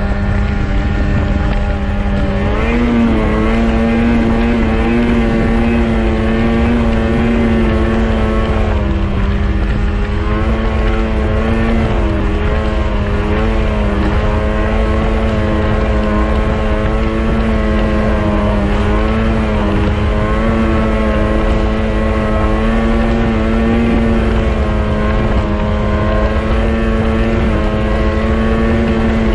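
Snowmobile engine running at steady cruising speed, its pitch wavering slightly with the throttle and rising a little a few seconds in, with wind buffeting the microphone.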